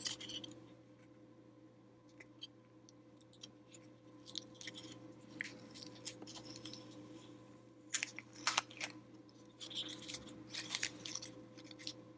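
Blue painter's tape being peeled off a circuit board: irregular crackling, rustling rips and small clicks, coming in clusters, most busily near the end.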